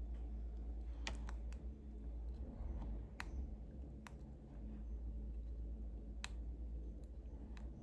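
A few sharp, irregular clicks of a small metal tool against a Dupont D57 lighter's parts while the rubber seal is worked out of its gas regulator, over a steady low hum.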